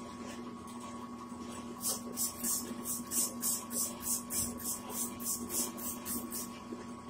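Hand trigger spray bottle squirting the polishing wheel in a quick run of about fifteen short hissing sprays, three or four a second, starting about two seconds in. Under it runs the steady hum of the running bull wheel machine.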